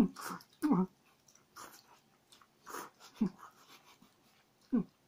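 A person eating too-hot cup udon noodles: short huffing breaths through the mouth and slurps, with chewing between and a few brief voiced grunts.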